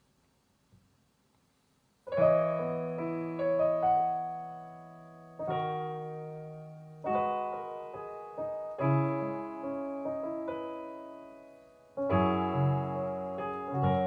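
Piano intro to a ballad: after about two seconds of near silence, chords are struck and left to ring and fade, a new chord coming every second or two.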